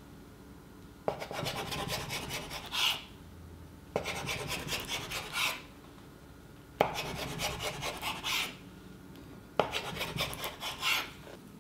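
A kitchen knife sawing through rolled matcha dough on a wooden cutting board, four cuts in turn. Each cut opens with a sharp tap of the blade and runs on for about a second and a half of fast rasping strokes as the knife works back and forth against the board.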